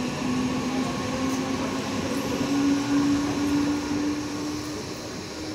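MEMU electric multiple-unit train pulling out of the station past the platform. Its rolling rumble carries a steady whine that slowly rises in pitch as it gathers speed. The sound eases off near the end as the last coach goes by.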